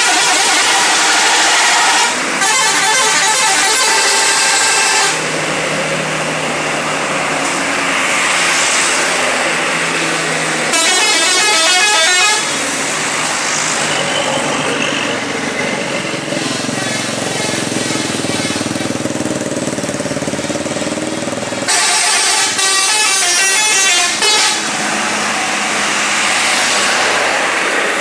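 Bus 'telolet' musical air horns playing continuously: several horn tones sound together and switch between short repeating tune patterns every few seconds.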